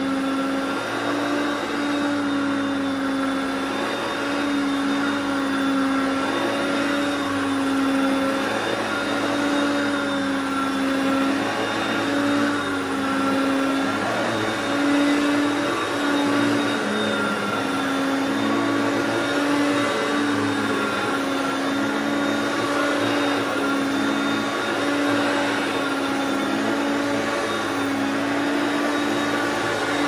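Hoover self-propelled upright vacuum cleaner running steadily as it is pushed back and forth over a rug. Its motor hum wavers slightly every second or two with the strokes.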